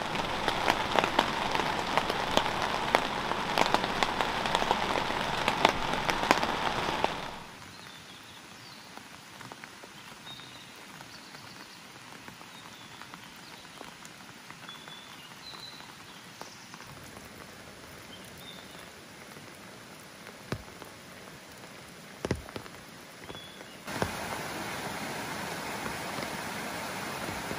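Steady rain pattering, with many sharp drop clicks. About a quarter of the way in it cuts to a much softer, even rain hiss with a few faint high chirps and a couple of soft knocks. Near the end a mountain stream comes in, rushing over rocks in a louder, steady wash.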